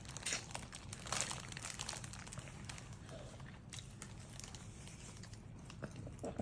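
Faint crinkling of plastic snack packaging with small crunches of a toddler eating, in scattered irregular crackles.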